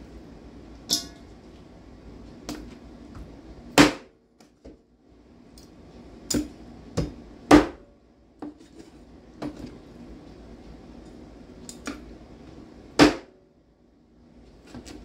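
Meat cleaver chopping squirrel into pieces on a cutting board: about eight sharp, irregular chops, the hardest about 4, 7.5 and 13 seconds in.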